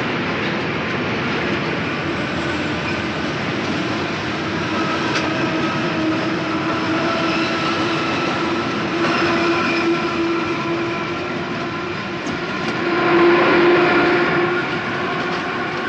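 Paris Métro train running along an elevated viaduct: steady rolling noise with a humming whine of several tones, swelling louder about thirteen seconds in.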